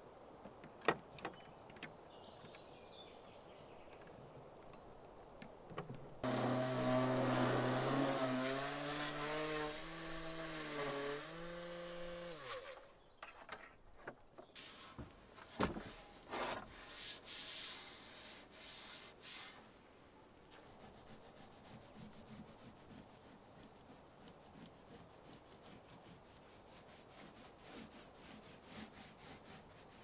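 An electric power tool motor runs for about six seconds, its pitch stepping down and back up as it works the wood, then winds down; a few knocks of wood being handled follow.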